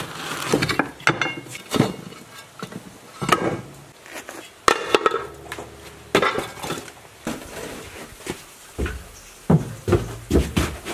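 Irregular knocks and metal clanks of old tractor wheel rims and parts being worked and handled, about a dozen separate hits.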